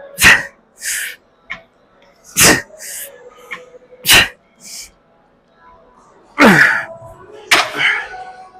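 A man breathing hard through ab-machine crunches: a sharp forceful exhale with each rep, each followed by a quick hissing inhale, four times, about every two seconds. Near the end one exhale turns into a falling, voiced groan.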